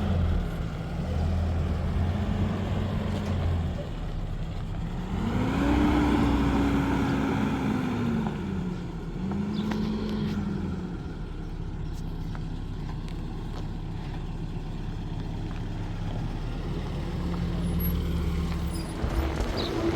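A motor vehicle's engine running, its pitch stepping up and down as the revs change. About halfway through there is one longer rev that climbs and then eases off.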